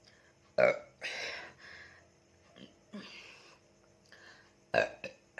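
A woman burping in a series of short burps brought up by gulping carbonated Coca-Cola. The loudest comes about half a second in and another near the end, with fainter burps and breathy noise between.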